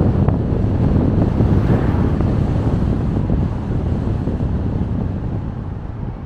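A car driving along a road: a steady low rumble of road and wind noise, with wind buffeting the microphone, easing slightly near the end.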